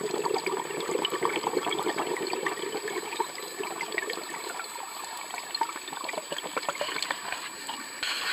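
Scuba diver's exhaled bubbles gurgling and crackling past an underwater camera, one long exhalation over the first four seconds or so, then fainter crackling.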